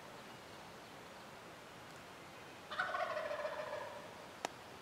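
A wild turkey gobbler gobbles once: a rattling call about a second and a half long, starting a little past halfway through. A single short click follows near the end.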